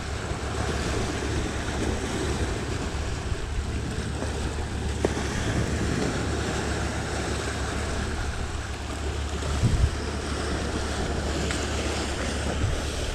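Sea waves washing in, with wind rumbling on the microphone; a brief low thump about ten seconds in.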